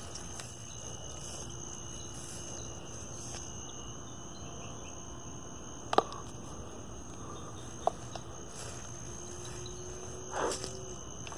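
Steady high-pitched chorus of night insects, crickets, running throughout. It is broken by a sharp click about halfway through, a smaller one two seconds later, and a short rustle near the end.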